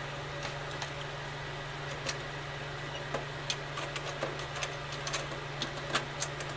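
Irregular light clicks and taps of tools and small metal parts being worked on a tankless water heater's housing, over a steady low hum.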